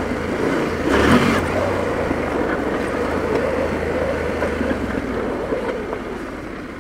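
Trail motorcycle engine running while riding a dirt track, with a brief louder surge about a second in, then a steady note that eases off slightly near the end.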